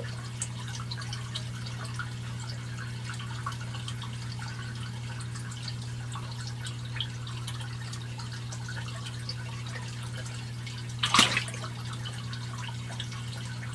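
Water trickling and dripping steadily in an aquaponic fish tank over a steady low hum from the system's pump. One brief, louder splash comes about two seconds before the end.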